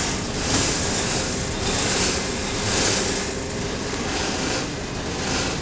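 Steady machinery noise aboard a container ship: a continuous low drone with an even hiss over it.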